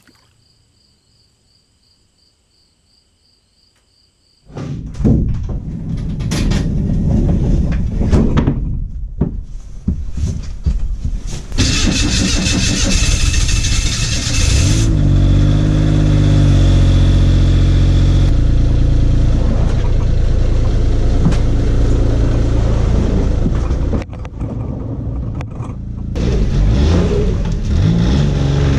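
A vehicle engine starting about four and a half seconds in, then running and revving up and down.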